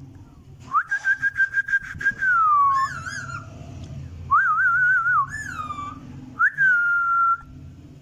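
Indian ringneck parakeet whistling a string of about five loud whistled phrases. The first is a held note with a fast stutter that then glides down, followed by wavering, warbling notes, and the last is a held note sliding slightly lower.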